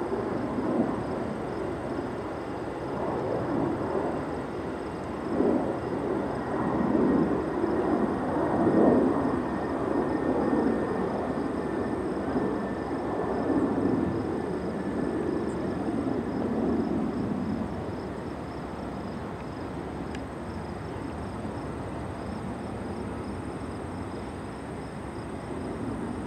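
Jet airliner's engines rumbling as it passes, the rumble swelling and wavering before it dies down about two-thirds of the way through.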